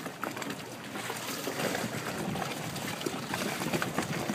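Water splashing and trickling in an uneven, continuous wash.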